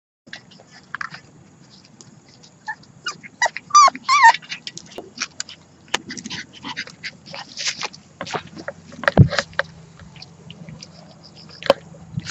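Puppies about 40 days old yelping in a few short, high bends of pitch about four seconds in. Many short scuffs and knocks of handling and pawing at the camera surround the calls.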